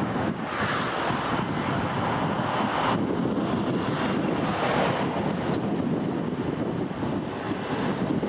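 Four jet engines of an Airbus A340 airliner running at takeoff power during the takeoff roll, a steady rushing roar mixed with wind buffeting the microphone. The roar changes abruptly about three seconds in.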